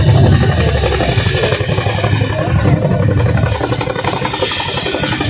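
Boeing CH-47 Chinook tandem-rotor helicopter hovering low, its twin rotors beating in a steady, loud, rapid pulse.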